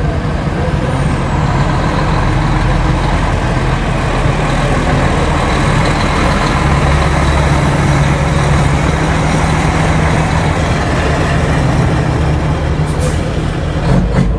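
Mack semi-tractor's diesel engine running steadily as the truck pulls a loaded lowboy trailer slowly past, with a low engine note throughout. A couple of brief sharp sounds come near the end.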